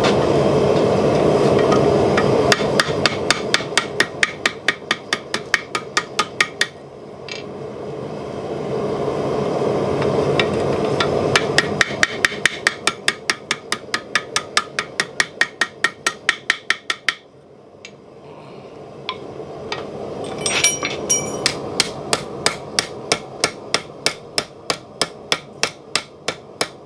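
Hand hammer striking a red-hot steel bottle-opener ring over the anvil horn, stretching the eye larger. The blows are quick, about four a second, and fall in three runs with short pauses between them.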